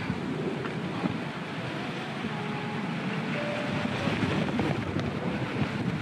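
Strong wind buffeting the microphone in a steady rumbling rush, with rain falling.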